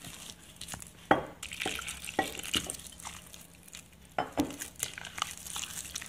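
A hand squeezing and mixing wet rice-flour batter in a glass bowl: irregular wet squishing, with a few louder squishes about a second in and about four seconds in.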